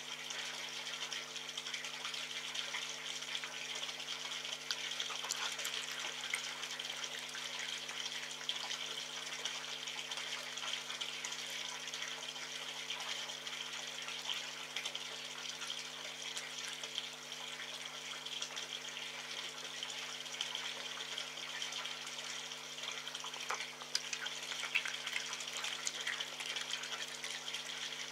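Red fox eating meat close to the microphone: small wet smacks, clicks and licks over a steady hiss and a low, steady hum.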